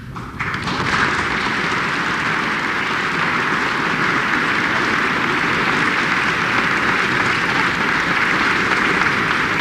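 Audience applauding steadily; the clapping starts abruptly about half a second in.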